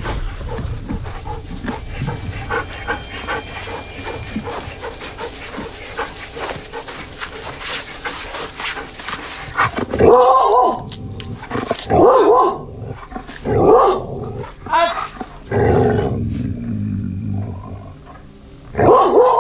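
Rustling and wind noise from a camera on a dog's harness as the dog moves. Then, from about ten seconds in, a dog barks and growls in about five loud outbursts.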